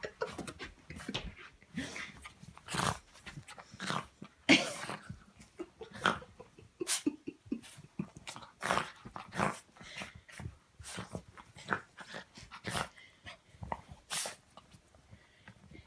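A wet Yorkshire terrier rubbing and burrowing into a blanket to dry herself: the fabric rustles and scuffs in quick irregular bursts, mixed with the dog's breathing.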